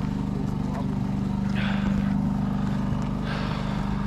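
Steady low mechanical hum of an idling engine, with two short rushes of noise, about halfway through and near the end.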